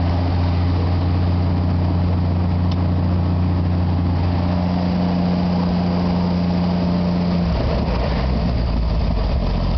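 The Ford 3.3 liter engine of a Hobart 300-G engine-driven welder runs steadily at raised idle. About three-quarters of the way through it drops to a lower, slow idle.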